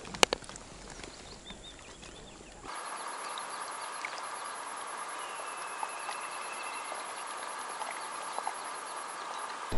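Quiet outdoor background with a few sharp handling clicks in the first seconds. After about three seconds it changes to a steady faint hiss with scattered light ticks.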